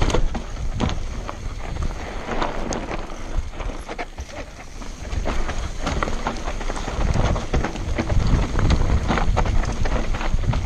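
Mountain bike riding fast over a rocky dirt trail: tyres crunching over loose stones and the bike rattling and knocking at every bump, with wind buffeting the microphone, heavier in the second half.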